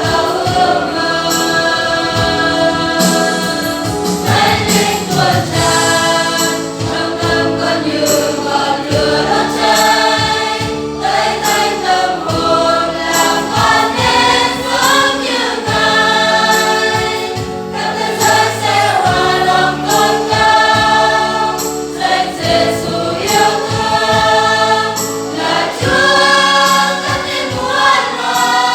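A choir singing a Protestant gospel hymn of praise, with continuous sung phrases.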